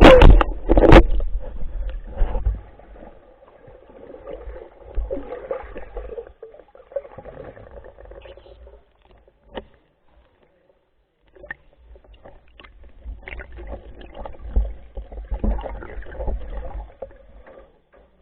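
Splashing and bubbling water, with two sharp knocks about a second apart at the start and a short quiet spell near the middle.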